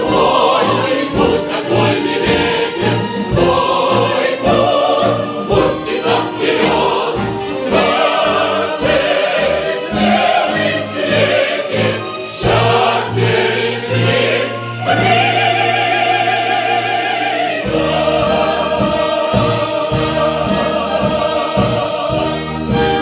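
A choir singing a song over instrumental backing with a steady beat, with a long held chord a little past the middle.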